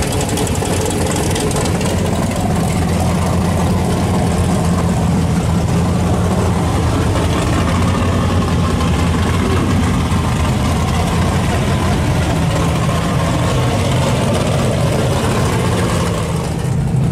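Engine of an off-road race buggy idling steadily, a loud low hum with no revving.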